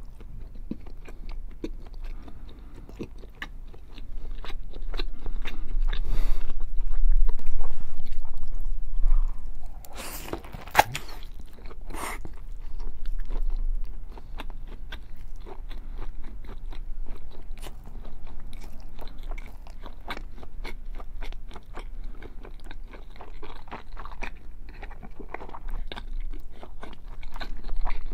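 Close-miked chewing and biting of a whole slab of bacon, with many small wet mouth clicks and crackles. It grows louder a few seconds in, with a few sharper bites and tears about ten to twelve seconds in.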